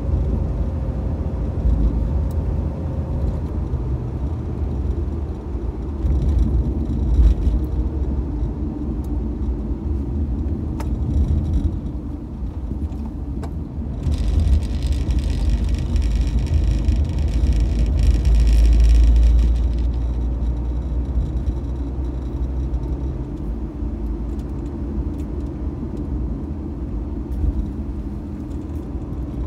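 Old Mitsubishi Debonair on the move, heard on board: a steady engine and road rumble. About halfway through, a hiss rises over it for some five seconds, and the rumble grows louder before settling back.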